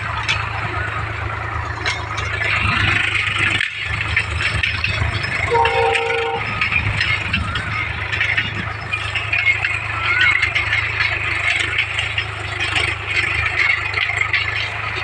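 Tractor engine running steadily under load while ploughing, with a dense metallic rattle and clatter from the plough and tractor. A short horn-like tone sounds about six seconds in.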